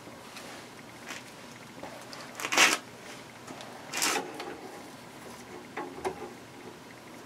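Handling noises: a few short rustles and light clicks as parts and tools are moved, the loudest rustle about two and a half seconds in and another about a second later.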